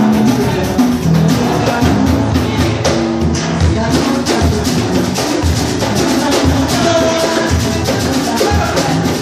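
A batucada samba percussion group drumming live, with dense, driving drum strokes and pitched sounds held over the top.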